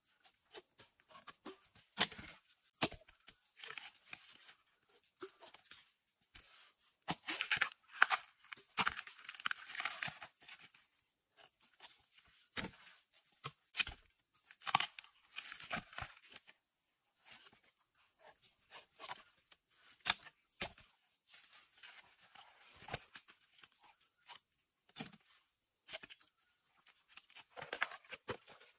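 Knife cutting into a bamboo shoot and its husk sheaths tearing away, heard as scattered sharp knocks and short bursts of tearing and scraping, busiest in a few clusters. A steady high-pitched insect drone runs underneath.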